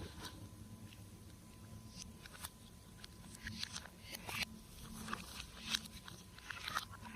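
Slime being squeezed and pressed by hand, with irregular sticky clicks and crackling pops.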